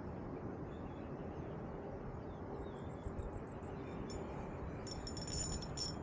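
Steady low outdoor rumble with faint, rapid, high-pitched chirping that comes in about halfway through and grows steadier near the end.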